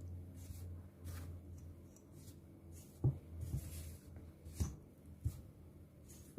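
Spatula scraping and stirring a sticky flour-and-milk dough mixture in a mixing bowl, in short repeated strokes, with a few light knocks against the bowl about three seconds in and again near the end.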